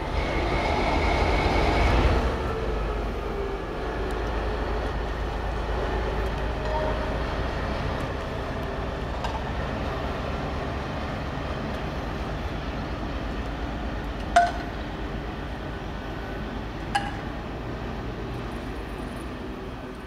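TEP70 diesel-electric locomotive running light and pulling away, its diesel engine rumbling steadily, loudest in the first two seconds with a high steady tone over it. Two sharp metallic clinks, one about 14 seconds in and another near 17.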